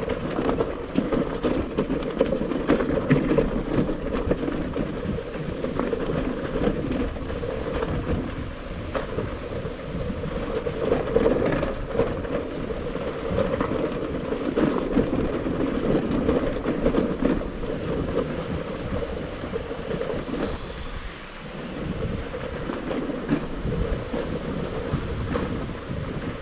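Motorcycle running along a rough dirt track, its steady engine noise mixed with frequent rattles and knocks from the bumpy ground.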